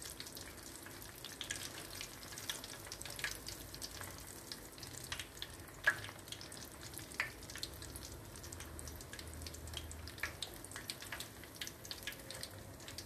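Split roasted gram frying in hot oil inside a wire-mesh strainer, stirred with a metal spoon: a steady sizzle with many small crackling pops, and one louder pop about six seconds in.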